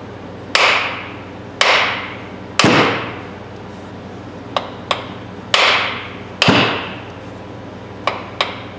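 Hammer blows on the end of a wooden hammer handle, driving it into a brass sledgehammer head to seat the head. There are five hard strikes, each ringing briefly: three about a second apart, then two more a second apart, with a few lighter taps between them and near the end.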